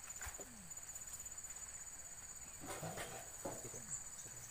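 Insects chirring in the riverside reeds, a steady high-pitched drone, with a few brief faint sounds near the start and about three seconds in.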